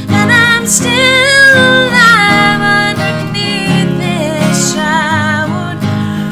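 A song: a singer's voice holding notes with vibrato over acoustic guitar accompaniment.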